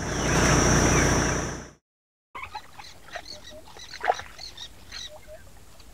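A safari vehicle's engine idles with a low hum and wind noise, then fades out just under two seconds in. After a brief silence, a quiet bush ambience follows with scattered short bird chirps.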